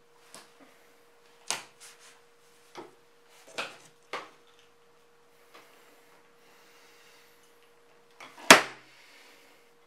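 A run of sharp wooden knocks and thuds, then one loud, hard strike about eight and a half seconds in, fitting a knife brought down in a chopping stroke. A faint steady hum tone sits underneath.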